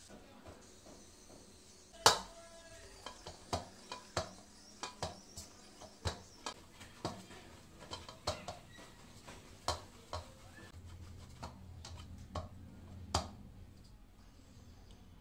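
Irregular sharp knocks and taps against a stainless steel bowl as wheat-flour poori dough is kneaded and rolled into a log in it. The loudest knock comes about two seconds in, followed by many smaller ones.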